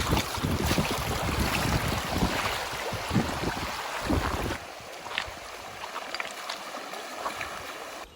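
Rushing river water with wind buffeting the microphone for the first four and a half seconds, then the water alone, quieter, with a few short splashes.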